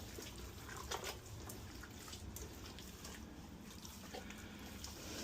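Faint, scattered wet clicks and drips from hands working seasoning into a raw turkey, over a low steady hum.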